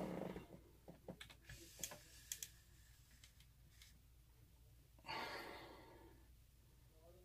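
Quiet handling: a few sharp little clicks, and a person's breath near the microphone, once at the start and again as a longer sigh-like exhale about five seconds in that fades out.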